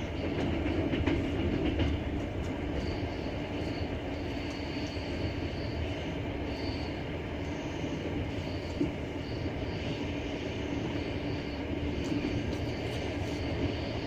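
Double-deck passenger train running on the rails: a steady rumble of wheels, with a few sharp knocks from the wheels, most of them in the first two seconds, and a faint high squeal that comes and goes.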